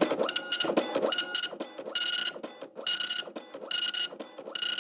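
Dot-matrix printer printing: the print head buzzes across the paper in short passes, about six of them, each under half a second, with brief pauses between.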